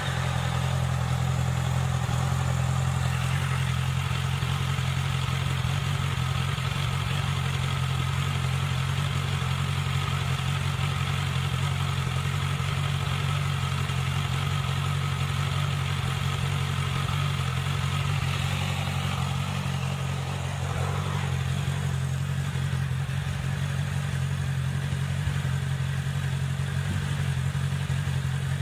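Honda CBR650F inline-four motorcycle engine idling steadily through an aftermarket slip-on exhaust, with no revving.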